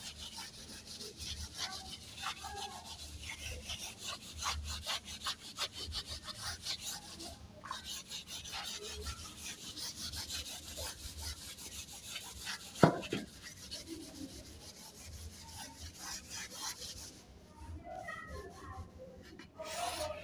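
A chalkboard duster rubs across a chalkboard in quick repeated strokes, wiping the chalk writing off. There is a single knock about two thirds of the way through. The rubbing stops a few seconds before the end.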